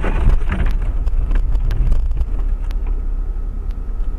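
Car on the move: steady low rumble of engine and road noise, with wind buffeting the microphone.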